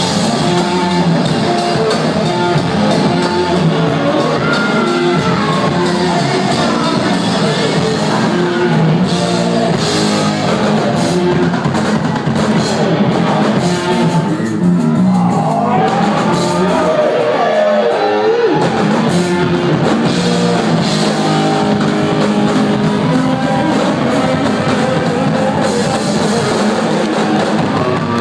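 Live rock band playing loud: electric guitar, drum kit and a singer, with the reverberant sound of a large hall.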